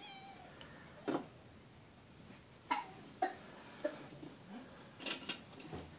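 A few brief, faint coughs and grunts from a young child, spaced out every second or so.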